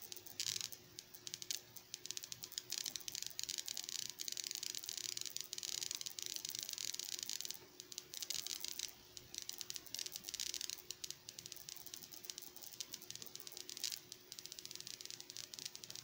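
Homemade high-voltage device crackling with fast, irregular ticks over a faint steady hum, pausing briefly about eight seconds in.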